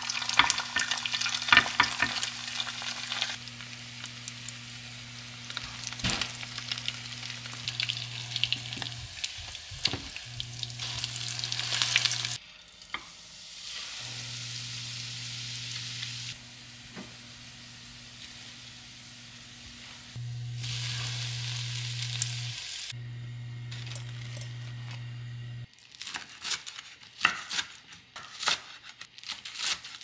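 Food frying and sizzling in a pan while it is stirred, with small taps and scrapes of a utensil over a steady low hum. The sound changes abruptly several times. In the last few seconds, sharp separate knocks take over.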